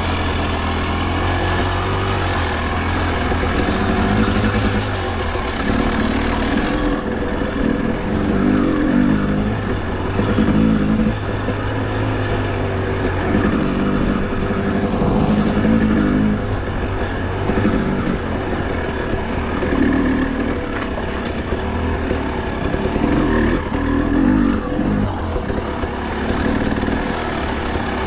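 Enduro dirt bike engine running while ridden, revving up and down again and again with the throttle, swelling roughly every two seconds.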